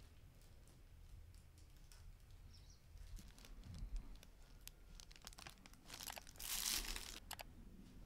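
Thin plastic crinkling in a brief rustle about six and a half seconds in, amid scattered light clicks and taps of handling.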